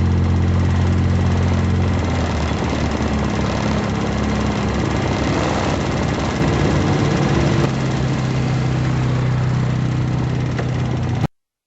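Tao ATV engine running, its note shifting in pitch about two seconds in and again past the middle, with rough rumbling between. The sound cuts off abruptly near the end.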